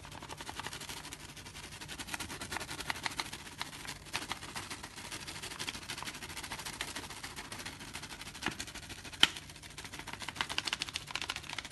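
Hand kneading and squeezing sticky homemade flour-and-water dough on a plastic board: a dense run of quick crackling clicks, with a couple of sharper knocks about three-quarters through.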